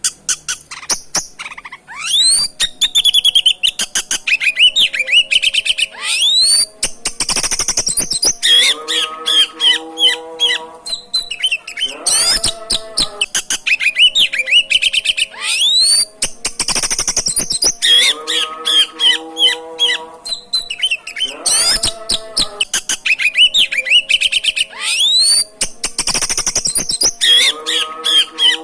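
Oriental magpie-robin (kacer) singing loud, varied song of rising whistles, trills and harsh chattering notes, with the same phrase sequence recurring about every four to five seconds.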